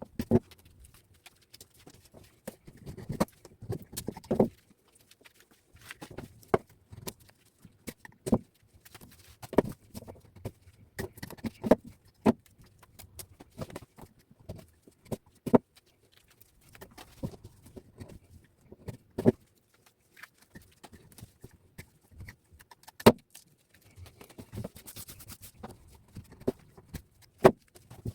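Irregular clicks and knocks, in uneven runs with short pauses, from scrap copper wire being handled and worked through a wire stripping machine; the sharpest knocks come near the end.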